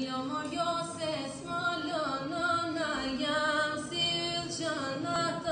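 Southern Albanian polyphonic folk singing, a cappella: a lead voice sings a gliding, ornamented line over a steady drone held by the group.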